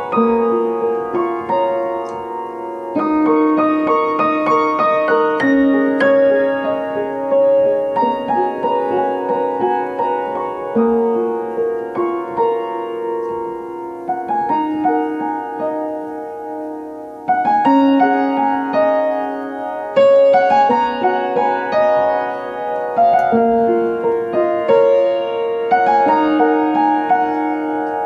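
Solo piano music, a slow, gentle piece of single notes and chords that thins out and grows quieter before picking up again partway through.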